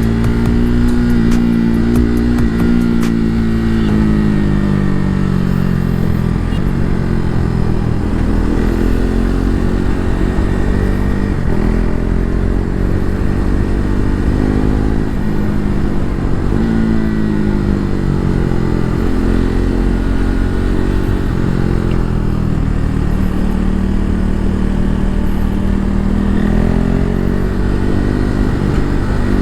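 KTM RC 390 single-cylinder engine heard while riding, repeatedly revving up and dropping back every few seconds as the bike accelerates, shifts and slows. A steady rush of wind noise lies underneath.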